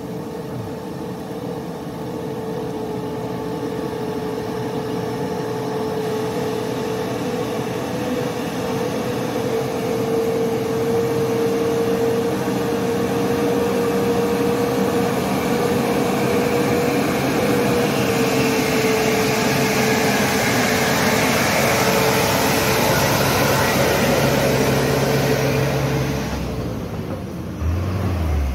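Mitsubishi Fuso Fighter tanker truck's turbo-intercooled diesel engine pulling at a steady pitch as the truck approaches, growing louder as it nears and dropping off near the end as it passes.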